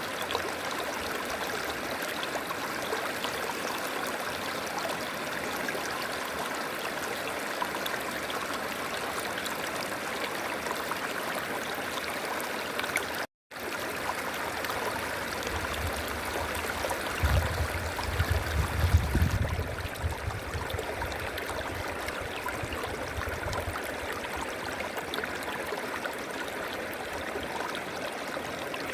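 River water rushing and trickling steadily. The sound cuts out completely for a moment about halfway through, and a low rumble rises and fades a few seconds later.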